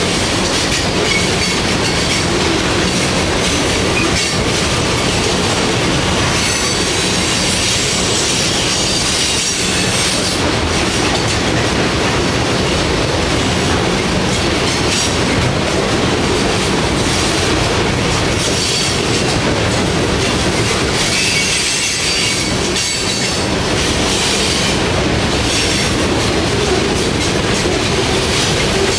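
Freight train hopper cars rolling past close by on a curve: a steady, loud rumble of steel wheels on rail, with thin high squeals from the wheels coming and going.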